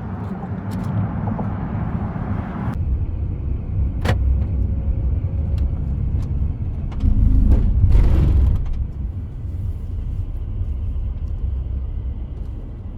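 Moving car heard from inside the cabin: a steady low road and engine rumble. A hiss over it stops abruptly about three seconds in, a short click comes a second later, and the rumble swells louder for a couple of seconds past the middle.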